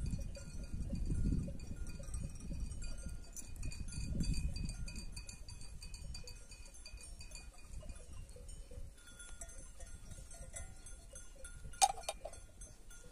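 Bells on a grazing flock of sheep jingling and clanking continuously, many short rings at a few fixed pitches, with a low rumble in the first few seconds. About twelve seconds in there is a single sharp metallic clink, the loudest sound.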